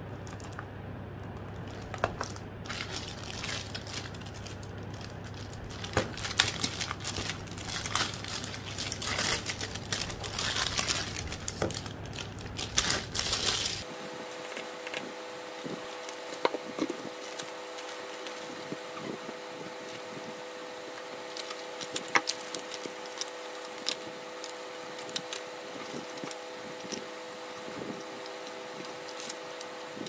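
Hands unpacking and handling packaged items on a desk: plastic packaging crinkling and boxes and bottles clicking and knocking as they are picked up and set down. A steady low background hum changes to a higher steady hum about halfway through.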